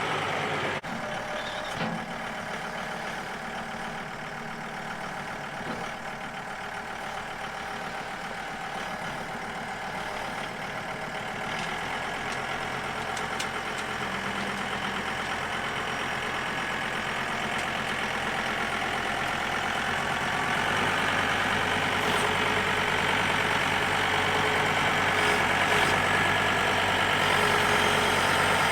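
John Deere tractor's engine running steadily, growing gradually louder.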